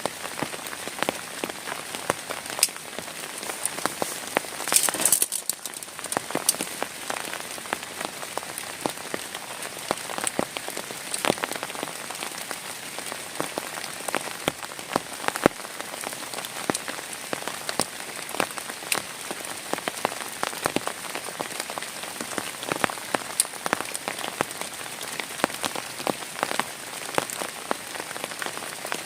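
Heavy rain falling steadily, with many separate drops striking close by as sharp ticks over the hiss. There is a brief louder swell about five seconds in.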